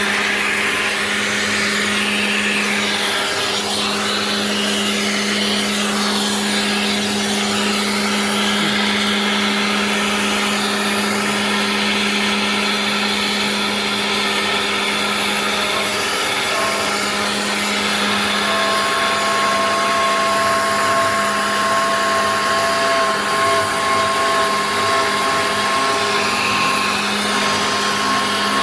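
Genmitsu 3020 PRO MAX CNC router milling: the spindle's steady whine with the cutter working through the stock. About two-thirds of the way in, a higher pair of steady tones joins in.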